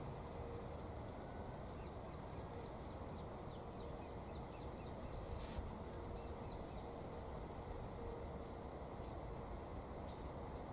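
Outdoor ambience: steady background noise with faint, short, high bird chirps here and there and a faint steady hum. One brief high click comes about five and a half seconds in.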